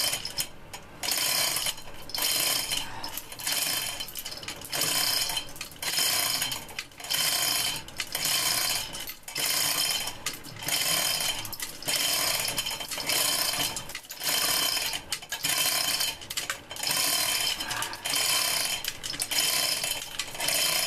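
Loose screws and small metal parts clinking and rattling as they are rummaged through by hand, in repeated bursts about once a second.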